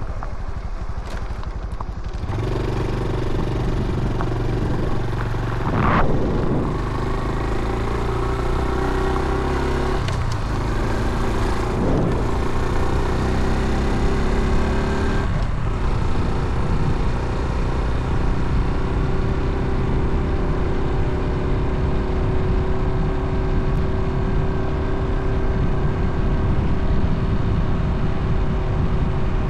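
Motorcycle engine running while riding, with wind rumbling on the camera's microphone. The engine note rises about two seconds in, changes pitch a few times in the first half, then holds steady at cruising speed.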